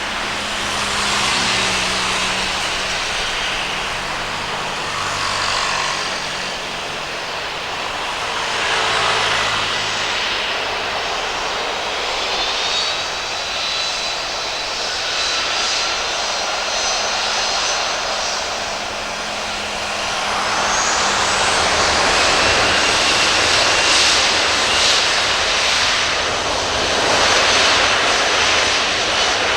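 Jet engines of a Boeing 737-300 freighter (CFM56-3 turbofans), running with a whining tone over a broad rushing roar that grows louder about two-thirds of the way through.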